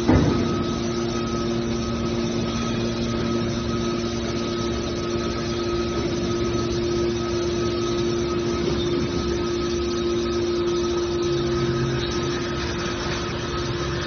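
Hydraulic power unit of a scrap metal baler running with a steady hum as its cylinders swing the press lid closed, with a single knock right at the start.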